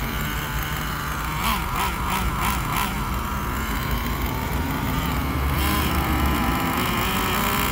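Traxxas T-Maxx 3.3's small two-stroke nitro engine running during break-in, with a quick run of throttle blips from about one and a half to three seconds in, then a steadier, slightly louder run from about five and a half seconds in.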